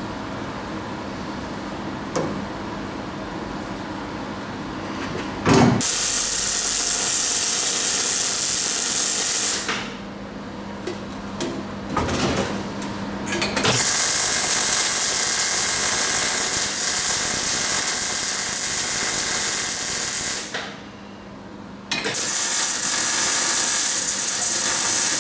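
Wire-feed welder arc crackling steadily as the welder lays welds on a square steel tube door frame, in three runs of several seconds each with short pauses between, the first starting about five seconds in.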